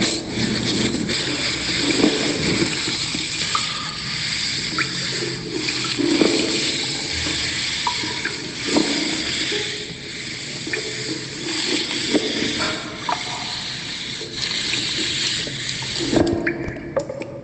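Continuous rushing of water with scattered small clicks and splashes; the noise rises and falls but never stops.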